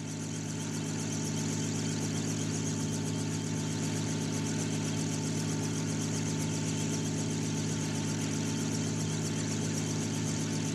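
Steady drone of an aircraft engine heard from on board: a low hum of several steady tones with an even hiss above, swelling in over the first second or two and then holding level.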